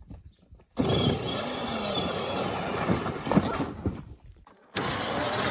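Power Wheels ride-on toy Jeep, converted to run on an 18-volt Milwaukee battery, driving over a snowy, slushy path: a noisy mix of electric drive-motor whine and tyres on snow. It starts suddenly about a second in, drops out briefly near the end and starts again.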